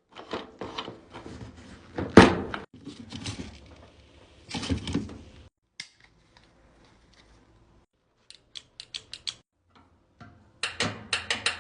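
Handling noises of hard objects: a run of knocks and clunks with a loud bang about two seconds in, a quick series of about eight light clicks a little past the middle, and more clatter near the end.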